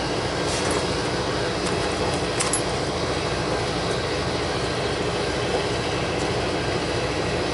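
Steady hum of running machinery, even throughout, with a few light clicks of hand tools on the motor wiring about half a second and two and a half seconds in.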